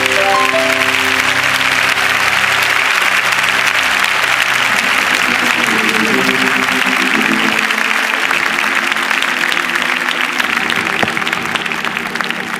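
Audience applauding over held instrument chords as the song closes; the applause thins toward the end into separate claps.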